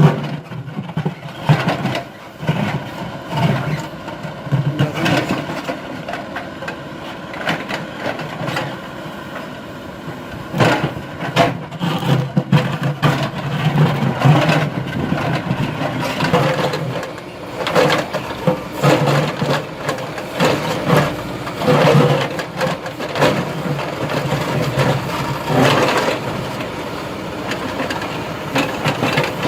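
MST backhoe loader's diesel engine running, its speed swelling and easing again and again, with repeated knocks and clanks throughout.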